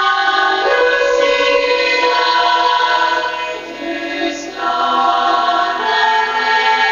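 Choir singing, processed through a 32-channel sine-wave vocoder (TigerCIS) to simulate how music sounds through a cochlear implant: the voices come through as a dense set of steady tones that step with the melody.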